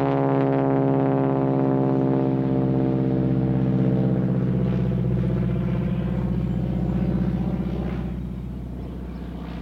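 An engine drones with a steady, even hum, then fades away about eight seconds in.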